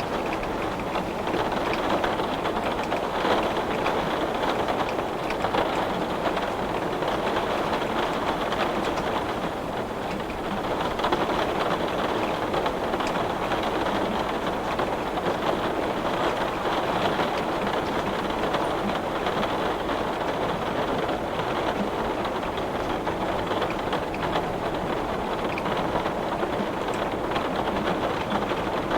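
Heavy rain falling steadily on glass, a dense, even patter without let-up.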